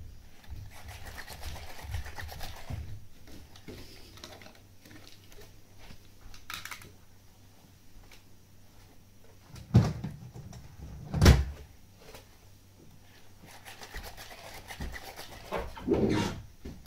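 Sony aibo ERS-1000 robot dog moving close by, its joint motors whirring and its body shifting, with a person's bare footsteps on carpet. Two loud thumps come about a second and a half apart past the middle, and a louder rustling movement comes near the end.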